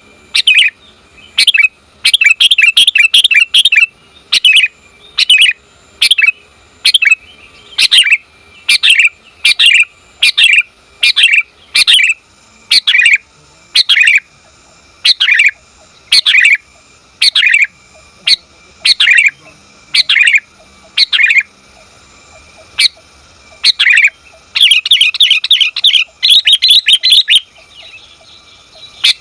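Female sooty-headed bulbul calling to a male: short, loud chirping calls repeated roughly every three-quarters of a second, broken twice by bursts of rapid chattering, a few seconds in and near the end.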